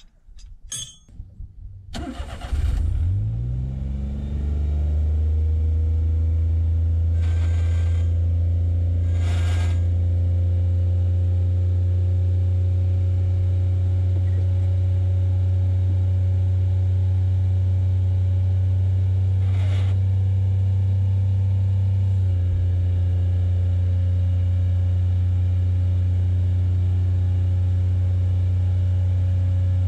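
Daihatsu Hijet kei dump truck engine starting about two seconds in, speeding up over a few seconds and then running steadily at a high, loud speed. The throttle wire is seized and holds the throttle pulled open. A few sharp clicks sound over the engine, and its note shifts slightly about 22 seconds in.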